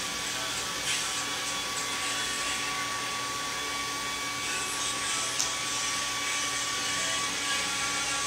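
Handheld hair dryer running steadily, an even whooshing rush with a thin steady whine over it.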